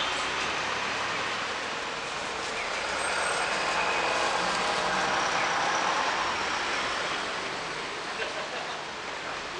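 Road traffic: a vehicle passing on the street, its tyre and engine noise swelling to a peak about midway and then fading.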